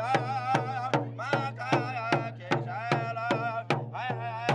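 Pow wow drum struck in a steady beat, about two and a half strikes a second, with singers' voices wavering in pitch over it.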